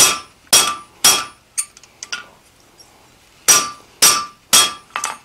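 Hand hammer striking a spring fuller on a red-hot steel bar at the anvil, necking in a shoulder: three ringing blows about half a second apart, a pause with a couple of light taps, then another run of blows at the same pace.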